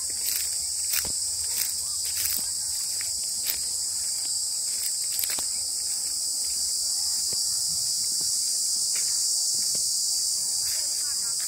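Steady high-pitched chorus of insects, with footsteps on dry grass and leaves, more frequent in the first half.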